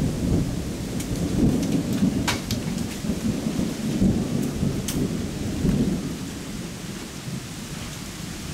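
Thunder rumbling low and rolling, fading after about six seconds, with a few sharp ticks like raindrops hitting leaves.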